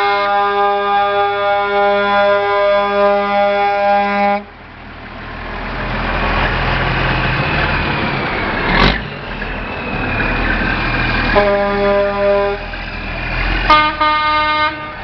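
Truck air horns: one long steady blast held for about four seconds, then two short blasts near the end. Between the blasts, the diesel engines of the passing trucks can be heard running.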